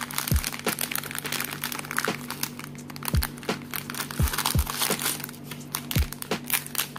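Thin plastic parts bags full of toy bricks crinkling and rustling as they are squeezed and picked open by hand. Background music with deep bass thumps that fall in pitch and steady low tones plays throughout.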